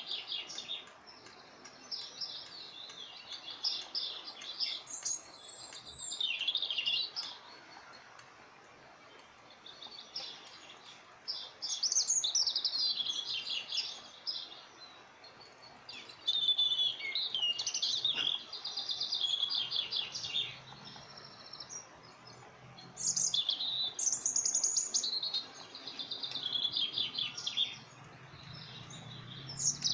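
A small bird chirping and trilling in quick, high phrases of a few seconds each, with short pauses between them.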